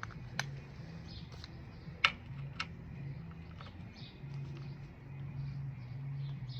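A few light, sharp clicks and knocks of objects being handled, the loudest about two seconds in, over a low, wavering hum.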